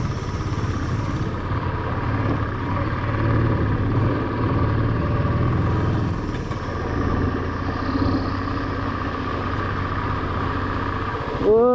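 Motorcycle engine running steadily while riding over a rough off-road track, with wind and road noise. Right at the end a loud held humming tone breaks in abruptly.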